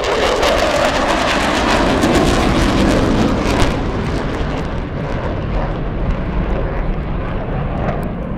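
Eurofighter Typhoon's twin jet engines roaring overhead, with a harsh crackle for the first three or four seconds, then easing to a duller roar as the jet climbs away.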